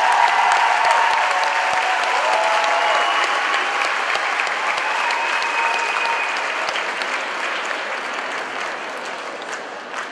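Audience applauding, with a few cheers in the first couple of seconds; the applause gradually dies down.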